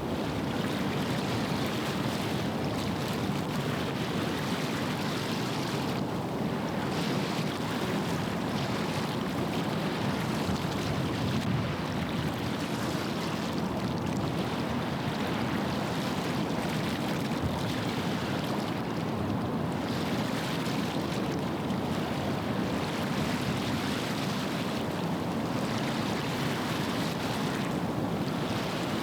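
Steady wind and water noise at the shore of a shipping channel: a low, even rumble with a hiss that swells and eases every few seconds.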